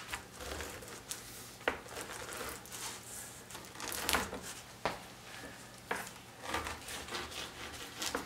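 Long knife sawing back and forth through a firm dry-cured capocollo on a wooden cutting board: irregular rasping strokes through the hard outer casing and meat, with several sharp clicks.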